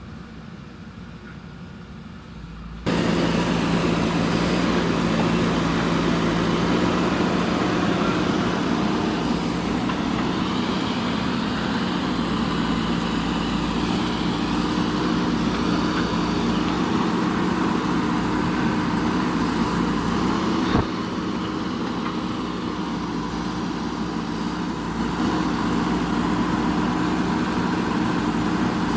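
JCB backhoe loader's diesel engine running steadily under load. It comes in abruptly much louder about three seconds in, and there is a single sharp knock about twenty seconds in.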